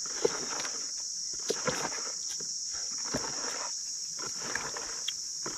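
A stick stirring thick paint in a plastic bucket, swishing through the mix and knocking against the bucket a few times. Behind it, a steady high-pitched drone of insects.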